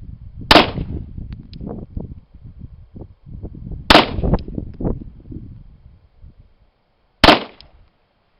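Three 9mm shots from a Glock 19 pistol in a Micro Roni carbine chassis, a little over three seconds apart, each a sharp crack with a short echo.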